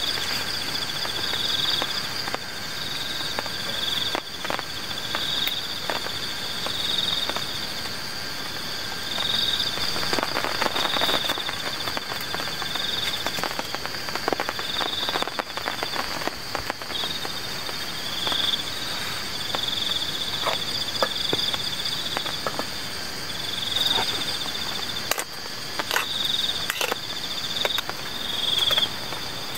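Night chorus of insects and frogs: a steady high buzz with a pulsing call repeating about once a second, over an even hiss. Scattered clicks and scrapes come from a utensil stirring in a metal cooking pot.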